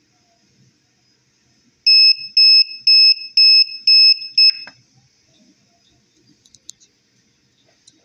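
Buzzer of a homemade Arduino kitchen thermometer-timer sounding its alarm: about six short, high-pitched beeps, about two a second, as the probe temperature passes the 121°F upper setting. The beeping cuts off with a click as the control knob is pressed, followed by a few faint clicks.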